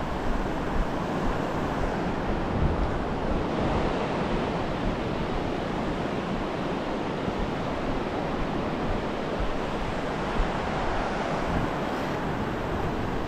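Ocean surf breaking and washing up a sandy beach, a steady rush, with wind buffeting the microphone in low rumbles.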